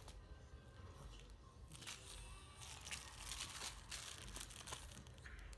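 Faint, irregular rustling and crinkling noises, like something being handled or moved about.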